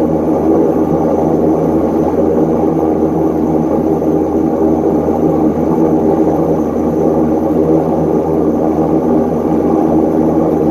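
Antonov An-24's Ivchenko AI-24 turboprop engines and propellers running steadily while the aircraft taxis, heard from inside the cabin. The sound is a loud, even drone with a low propeller hum and several steady tones.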